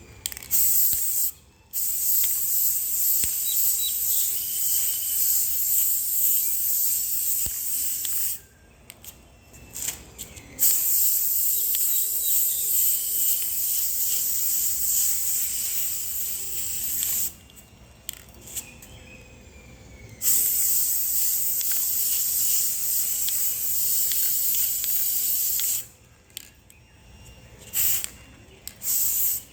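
Aerosol spray can hissing in bursts as paint or primer is sprayed. There are four long sprays of several seconds each, then a few short spurts near the end, each starting and stopping sharply.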